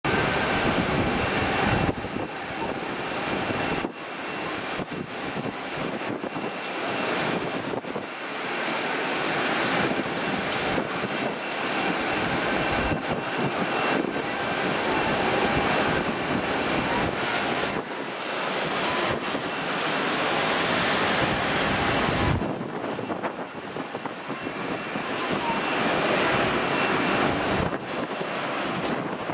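Boeing 777-300ER's GE90 turbofans as the jet comes in to land, touches down and rolls out: a loud, continuous rush of jet noise with a steady high whine running through it. The level drops abruptly a few times.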